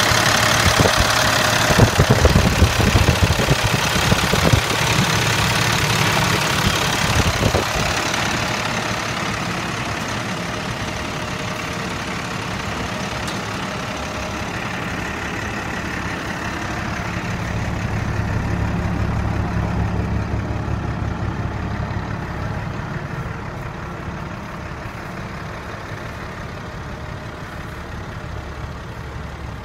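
International DT466 turbo-diesel engine idling steadily, with some uneven knocks over the first several seconds. It grows fainter after about eight seconds.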